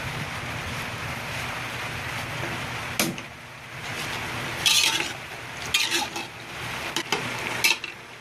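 Pork menudo simmering with a steady hiss in an open pressure-cooker pot. From about three seconds in, a spoon clinks and scrapes against the metal pot several times as the stew is stirred.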